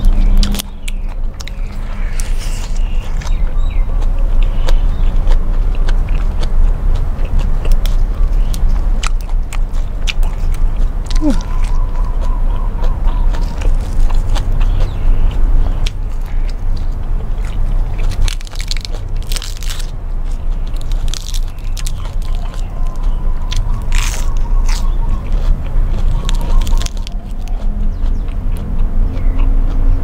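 Close-miked chewing and biting of fresh raw leafy greens, with crisp crunches every few seconds.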